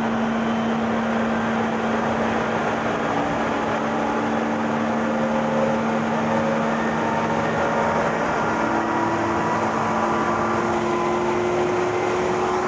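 Meitetsu 6000 series resistance-controlled electric train running: steady wheel-and-rail rumble over a constant low hum, with faint motor whine tones slowly rising in pitch as it picks up speed.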